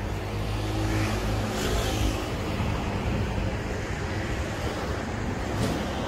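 Road traffic passing below: a motor vehicle's engine hum and tyre rush, loudest about two seconds in, over a steady traffic noise.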